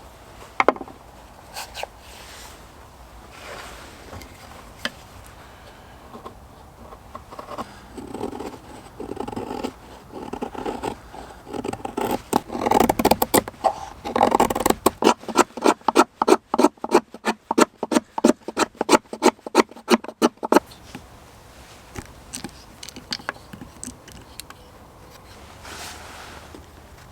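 Scattered handling and scraping noises, then about five seconds of fast, regular rasping strokes, several a second, that stop abruptly.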